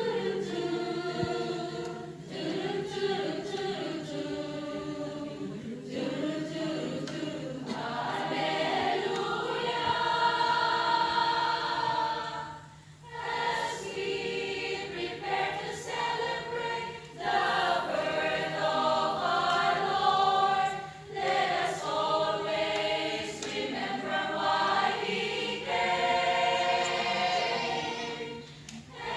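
Mixed church choir singing a Christmas praise song in sustained phrases, with short breaks between phrases.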